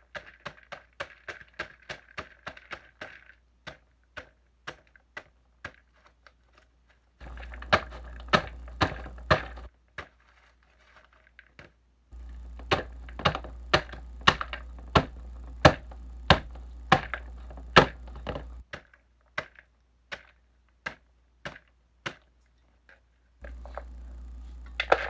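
A metal spoon clicking against the side of a mixing bowl as banana bread batter is stirred by hand, a sharp tap about every half second, some taps louder than others.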